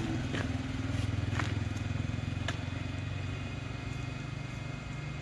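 A vehicle engine running steadily at idle, a constant low hum that eases off slightly toward the end, with three sharp taps in the first half.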